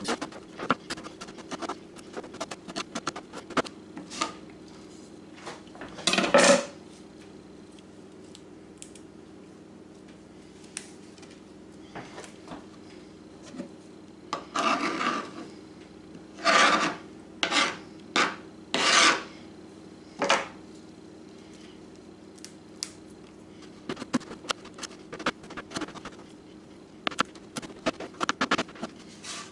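Chef's knife mincing fresh rosemary and thyme on a plastic cutting board: quick light taps of the blade, broken by several longer, louder strokes as the blade scrapes flat across the board.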